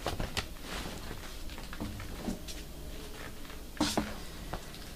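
Whole nappa leather hides being moved and turned over on a pile: soft rustling and scattered light knocks, with one sharper clack about four seconds in.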